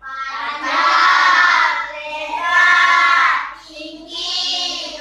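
Children singing together in three long phrases, the voices holding each note.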